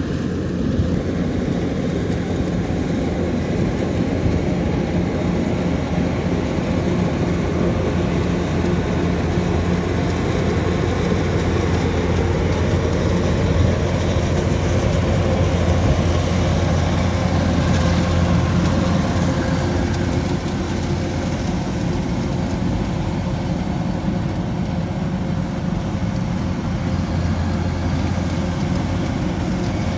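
Kubota DC-105X rice combine harvester running steadily while cutting and threshing rice: a constant low diesel engine drone that holds even throughout.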